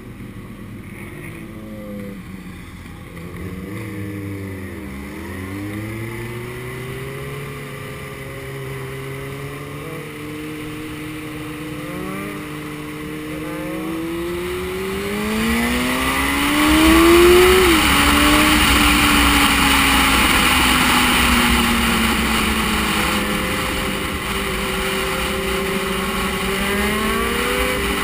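Motorcycle engine under way, dipping briefly about four seconds in, then pulling hard with its pitch climbing steadily until a sharp drop at an upshift a little past halfway, and climbing again near the end. Wind rush on the microphone grows as speed builds.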